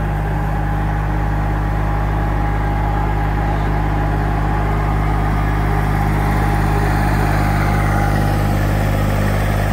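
Kubota compact tractor's diesel engine running steadily, with a steady whine over its low drone.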